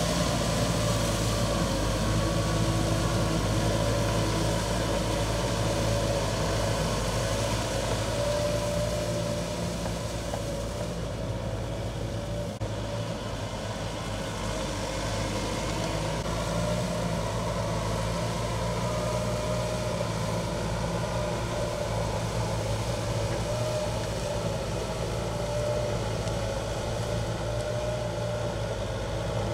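Kubota M6040S tractor's four-cylinder diesel engine running steadily under load as it drives a rotary tiller through flooded paddy mud, a little quieter around the middle.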